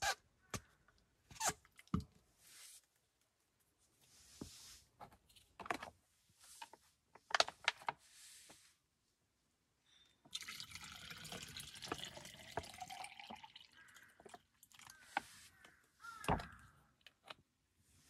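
Water poured from a plastic bag into a press-type water purifier bottle, a steady pour lasting about three seconds starting just past the middle. Before and after it come clicks and knocks of the purifier's plastic parts being handled, the loudest a sharp knock near the end.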